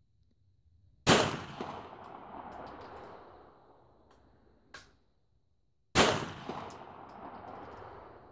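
Two 9mm pistol shots from a Beretta 92FS, about five seconds apart, each a sharp crack followed by a long echo that dies away over a couple of seconds.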